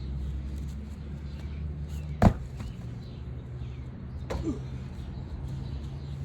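A single sharp knock about two seconds in, and a lighter click a couple of seconds later, over a steady low hum.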